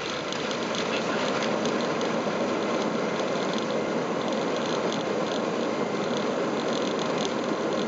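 Airbus A320 landing rollout heard from the cockpit: a loud, steady rush of engine and runway noise with a fine, rapid rattle over it.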